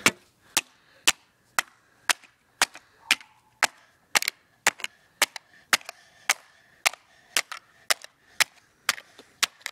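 A hammer repeatedly smashing a Diet Coke can flat, sharp strikes at a steady pace of about two a second.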